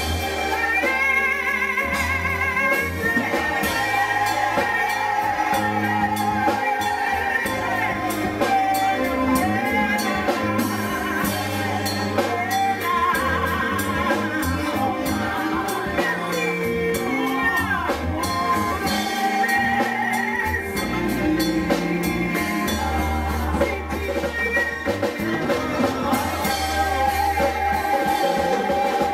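Live gospel music: a woman lead singer and a group of backing singers singing through microphones over an amplified band with drum kit and low bass notes.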